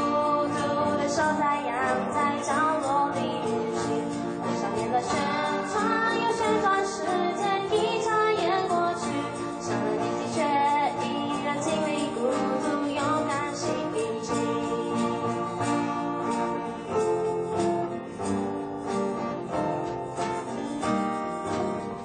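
Live acoustic band: a woman singing over two strummed acoustic guitars, with cajon and shaker keeping the beat.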